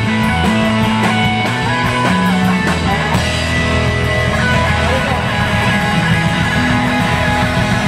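Live rock band playing loudly, with electric guitars over a steady bass line.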